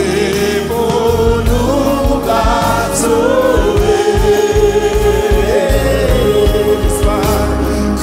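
Worship singers, men and women, singing a Haitian Creole gospel hymn about Christ's crucifixion into microphones over instrumental backing.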